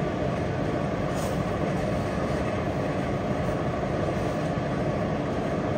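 Steady, even background noise with a low rumble, without breaks or distinct strokes.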